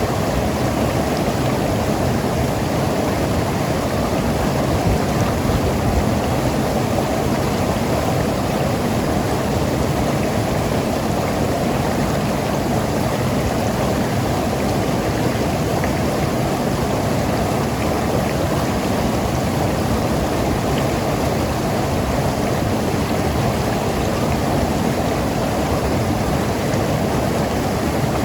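Mountain river rushing and gurgling over rocks, a steady, even flow of water.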